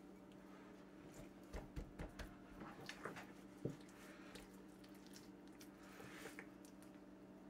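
Hands turning over and rubbing a raw pork shoulder on a wooden cutting board, faint: a few soft, wet squishes and taps in the first half, and a brief soft rustle near the end, over a low steady hum.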